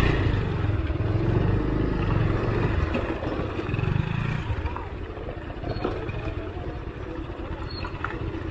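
Motorcycle engine running on a dirt trail, louder for the first four seconds or so and then dropping to a quieter run.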